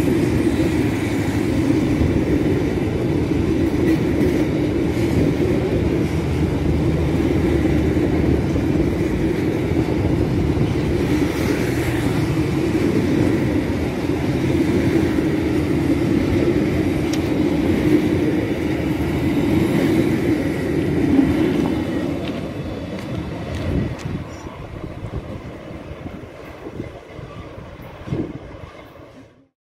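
Freight train of rail tank cars rolling past close by: a steady rumble of wheels on the rails, which fades over the last several seconds as the end of the train moves off, then cuts off suddenly.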